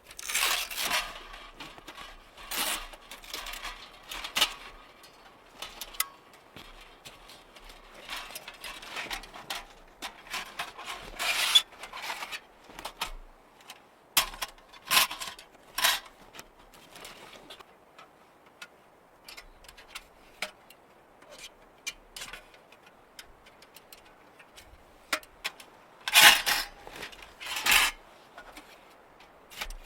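Irregular rustling and knocking of things being handled, with short sharp clinks here and there; the loudest bursts come about a second in, around eleven seconds in, and twice near the end.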